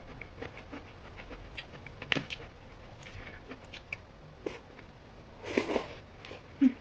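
Quiet eating at a table: scattered small clicks and taps from utensils and mouth, with a sharper tap about two seconds in. Near the end there is a brief breathy vocal sound and then a short low hum.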